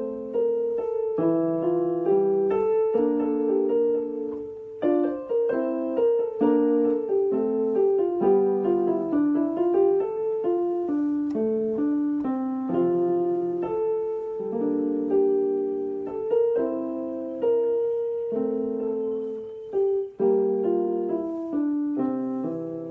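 Background piano music: a gentle melody with chords, played continuously.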